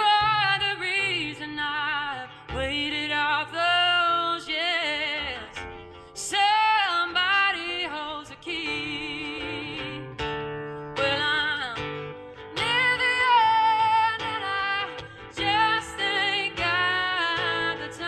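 A woman singing a song with vibrato while accompanying herself on acoustic guitar, in sung phrases with short breaks between them.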